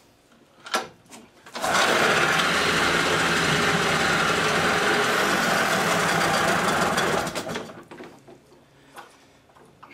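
Outboard motor pull-started: it catches about a second and a half in, runs steadily for about five and a half seconds, then dies away. Its throttle is seized, so it runs without throttle control.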